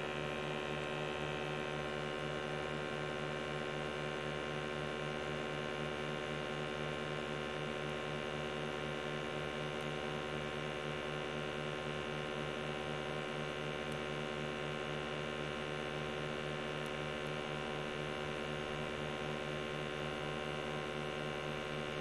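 Steady electric hum of a small motor, even and unchanging, with a faint high whine over it.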